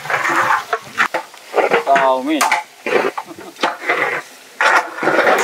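A long-handled stirrer scraping and churning through beef and peas in gravy in a large metal cauldron, in repeated strokes, with the food sizzling in the pot.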